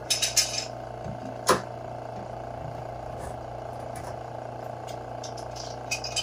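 Sharp clicks and knocks of a metal bar clamp and hand tools being handled on a quartz countertop. There is a quick cluster of clicks at the start, one loud knock about a second and a half in, and a few lighter ticks near the end, all over a steady hum.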